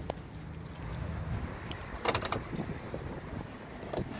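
Footsteps on block paving over a low steady outdoor rumble, with a few short knocks about two seconds in and again near the end.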